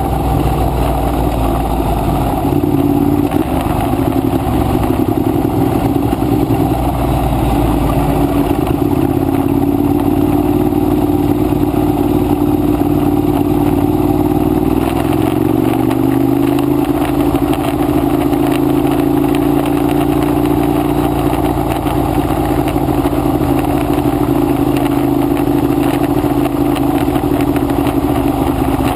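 Ducati 848 Evo's 90-degree L-twin engine running at low revs, heard from on the bike as it rolls slowly, with a slight rise in pitch about halfway through before it settles again.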